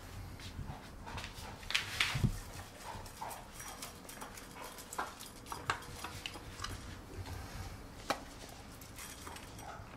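An Old English Sheepdog eating dry kibble from a bowl on the floor: irregular crunching and clicking bites, with a louder cluster of sounds about two seconds in.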